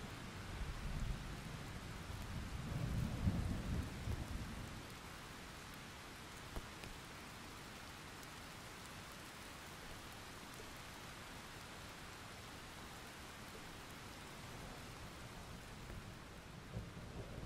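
Hand and glass dip pen moving over paper on a desk: a low rustling rumble in the first few seconds and again near the end, with a faint steady hiss in between while the hand is off the page.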